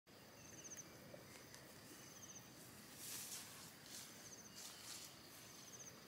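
Faint rural outdoor ambience: a short, high chirping trill repeats four times, every one to two seconds, over soft rustling that swells twice in the middle.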